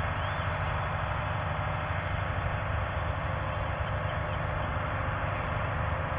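An engine running steadily at low speed, a low even hum with a constant hiss over it.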